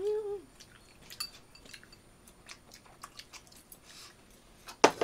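A person chewing a mouthful of fish cake (eomuk), with many small mouth clicks. A short hummed 'mm' rises and falls at the very start, and a single sharp click sounds near the end.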